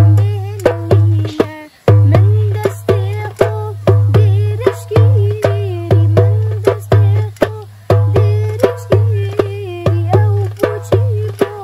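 Music with a goblet drum rhythm: deep booming strokes alternating with sharp higher clicks, under a wavering melody line. The rhythm stops for a moment about two seconds in, then carries on.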